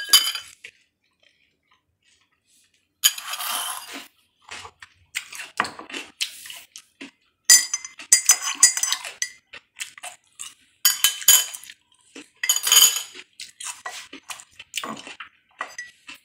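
Metal cutlery clinking and scraping against ceramic dishes, a white plate and a cup of milk tea, in irregular bursts starting about three seconds in; several of the clinks ring briefly.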